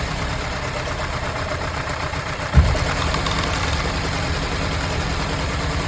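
Car engine idling steadily just after starting, with one short thump about two and a half seconds in.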